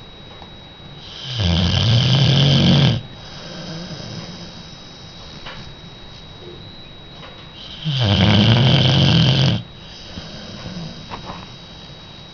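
Sleeping dog snoring loudly: two long rasping snores about six seconds apart, each lasting about a second and a half, with softer breathing between them.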